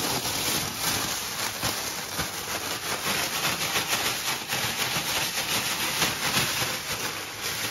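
Cut zucchini and sugar being shaken together in a plastic oven bag: a steady, dense rustling hiss of plastic and sugar granules.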